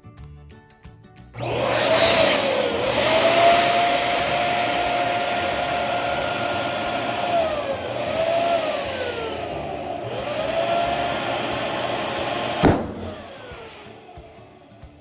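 Electric balloon pump blowing air into a balloon: a loud rushing with a motor hum that dips and recovers in pitch a few times. About 12.7 s in comes one sharp crack, and the pump then winds down and fades out.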